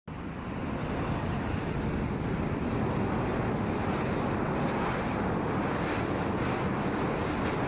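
Jet engines of a C-5M Super Galaxy transport, four turbofans, giving a steady, dense rumbling noise. It cuts in abruptly, builds a little over the first second or two, then holds level.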